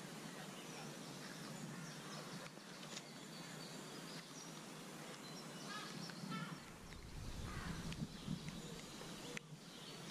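Outdoor lakeside ambience: a steady, even hiss with birds calling now and then, most clearly about six to seven seconds in, and a low rumble for a couple of seconds around seven seconds in.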